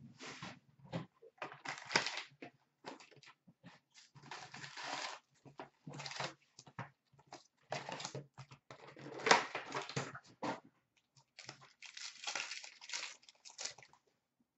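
Handling of an Upper Deck SP Authentic hockey card box and its packs: irregular crinkling, rustling and tearing of cardboard and pack wrappers as the box is opened and the packs are torn into. There is a sharp snap about nine seconds in.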